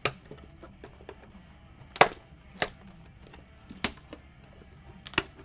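A handful of sharp clicks and knocks, five in all, spaced irregularly over a faint steady hum; the loudest comes about two seconds in.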